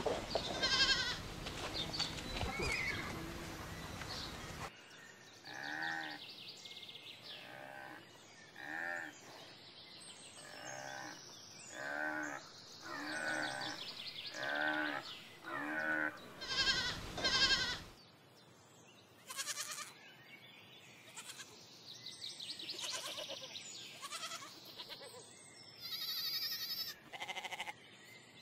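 Goats bleating over and over: a run of calls about a second apart through the middle, with a few more near the start and near the end.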